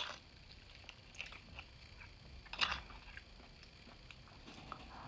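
Faint eating sounds: chewing and a metal spoon scraping and clicking against the inside of a roasted split bone. There are a few soft clicks and one louder short noise about two and a half seconds in.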